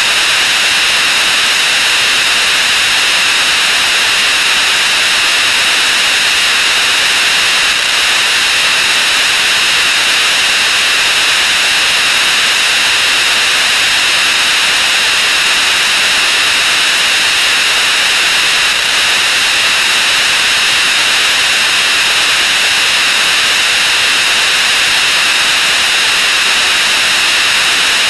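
A steady, loud hiss like static: a dense wash of many sound effects sped up 64 times and piled over each other until no single sound stands out.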